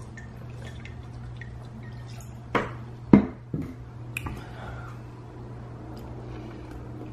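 A person gulping a drink from a bottle: three loud swallows about half a second apart, followed by a couple of small clicks.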